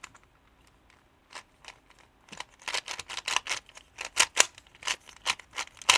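Ghost Cube shape-mod puzzle being twisted by hand, its plastic layers clicking as they turn. A few scattered clicks at first, then a quick run of turns with several clicks a second from about two seconds in.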